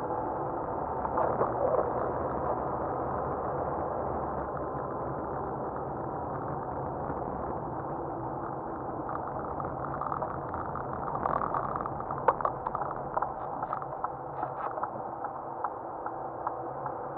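Car cabin noise from a dashcam while driving on a snow-packed road: steady engine and tyre noise, with scattered clicks and knocks in the second half.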